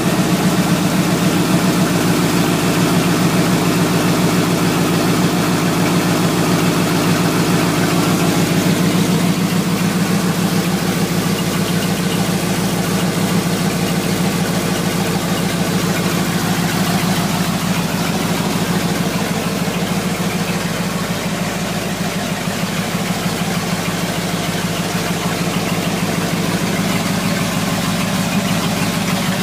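Freshly installed carbureted V8 in a Dodge D-100 idling steadily, early in its break-in with the ignition timing still set slow (retarded). The level dips slightly about two-thirds of the way through.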